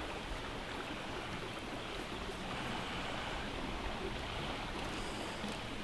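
Steady, even wash of shoreline surf noise.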